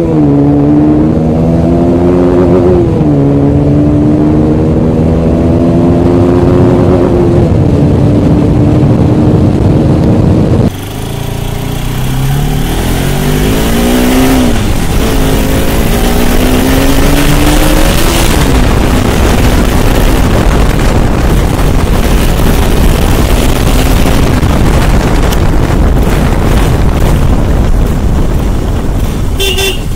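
Motorcycle engine running under way, its pitch climbing and then dipping again several times as the bike accelerates and shifts, over a steady rush of wind and road noise. About ten seconds in the sound drops sharply and changes, then the engine again rises and falls in pitch.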